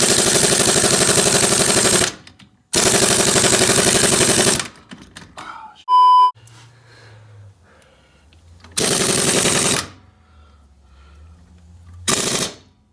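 Pneumatic impact wrench hammering in two long bursts over the first five seconds, then shorter bursts about nine seconds in and twice near the end, working at a rusted fastener that won't break loose. A short, loud, high beep sounds about six seconds in.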